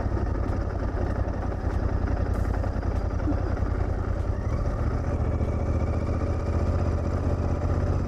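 Royal Enfield Continental GT 650's parallel-twin engine running at low speed with a steady, even exhaust beat.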